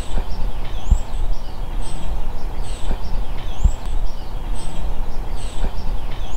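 Birds chirping, short high calls repeating about once a second, over a steady low background rumble, with two brief dull thumps.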